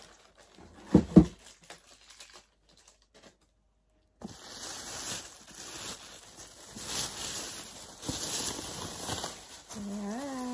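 Thin plastic bag rustling and crinkling as it is pulled off a cardboard gift box, with two loud knocks about a second in.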